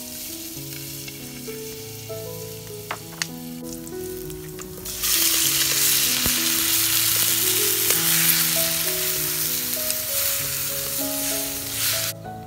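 Raw frog pieces tipped into a hot wok, bursting into a loud sizzle about five seconds in, after a softer sizzle of a little minced filling with a couple of clicks. The loud sizzle cuts off near the end. Background music with steady notes plays throughout.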